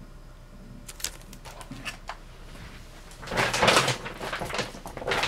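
Plastic packaging and paper packets being handled: a few light clicks, then about three seconds in louder rustling and crinkling.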